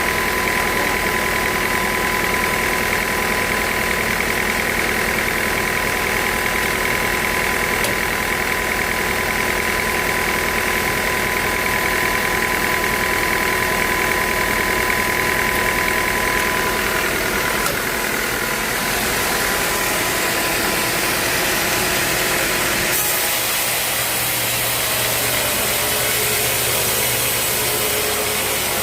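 Sawmill running steadily under its motor, with a high whine that drops out about two-thirds of the way through, after which the machine sound shifts in tone.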